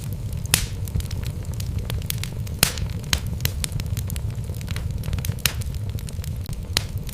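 Wood fire burning in a fireplace: logs crackling and popping with frequent sharp snaps, the loudest about half a second, two and a half and five and a half seconds in, over a steady low rumble of the flames.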